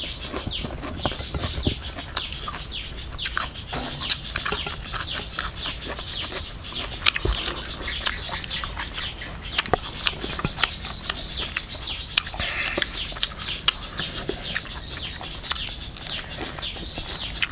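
Small birds chirping over and over in quick short calls, with scattered sharp clicks and taps.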